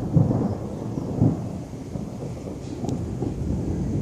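Heavy rainstorm: big raindrops pattering in a dense, uneven noise over a low rumble.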